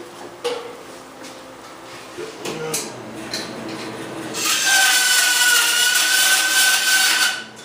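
A small power tool runs against a small piece of aluminum for about three seconds: a loud, harsh grinding hiss over a steady high whine, starting about four and a half seconds in and cutting off just before the end. Before it come light handling knocks and rubbing.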